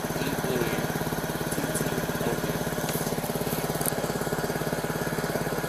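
Chevy Blazer's engine idling steadily with a rapid, even pulse, heard close beside the driver's door.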